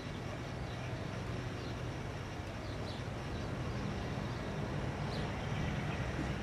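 Goodyear blimp's engines droning overhead, a steady low drone slowly getting louder, with a few faint bird chirps.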